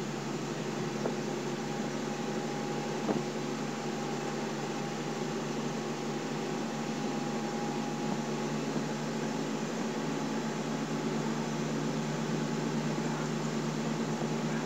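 Kenworth T600's Cummins 350 diesel engine running steadily while cruising, heard from inside the cab. A thin steady whistle from the turbocharger sits above the engine sound and fades out about halfway.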